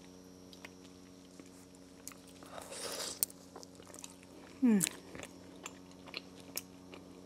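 Close-miked mouth sounds of biting into and chewing a shawarma wrap, with small wet clicks throughout. There is a soft crunchy swell about two and a half seconds in, and a brief falling "mm" hum near five seconds.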